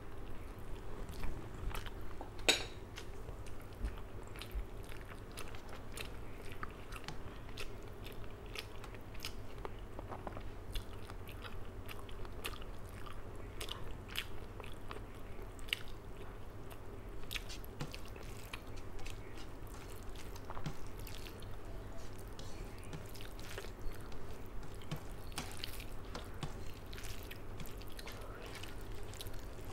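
Close-up eating sounds: a person chewing mouthfuls of rice and fish curry, with many small clicks as fingers mix food on a steel plate. One sharper knock comes about two and a half seconds in.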